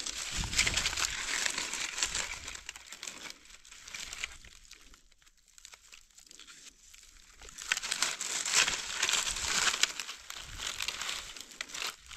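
Dry leaf litter crackling and rustling as gloved hands and a knife dig mushrooms out of the forest floor, in two spells with a quieter pause in the middle.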